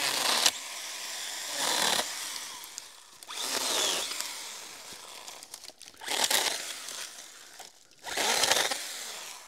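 STIHL GTA 26 battery mini chainsaw cutting low shoots at the base of a small tree. It cuts in five short bursts, each under a second, with the saw running more quietly in between.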